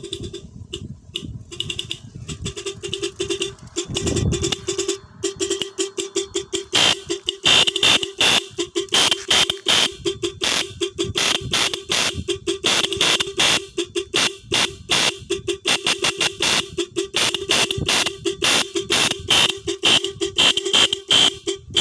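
An old electric horn being sounded in a sound check, in quick repeated honks over a steady buzzing tone; the honks come faster and louder from about seven seconds in.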